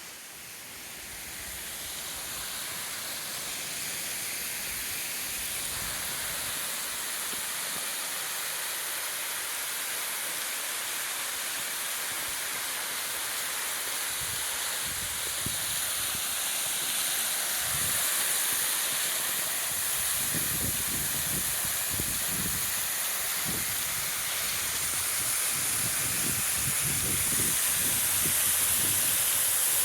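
Waterfall rushing, a steady hiss of falling water that grows louder throughout, with irregular low buffeting thumps in the second half.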